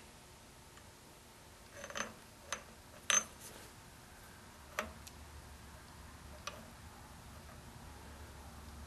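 A few light metallic clicks and taps as a brass nut is handled against the threaded leadscrew of a lathe, the loudest about three seconds in. A faint low hum comes in about halfway through.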